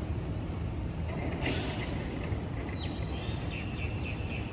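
Outdoor city ambience: a steady low rumble of traffic, a short hiss about a second and a half in, and a run of high chirps near the end.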